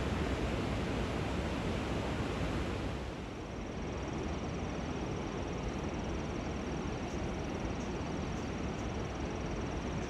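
Steady rushing noise of a river running high through a weir. A thin, high-pitched steady tone joins about three seconds in.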